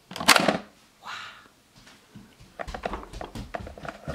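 Plastic Play-Doh Autobot Workshop mold press clacking down once with a sharp snap just after the start. This is followed by scattered light clicks and knocks of the plastic press and tray being handled as the moulded Play-Doh is lifted out.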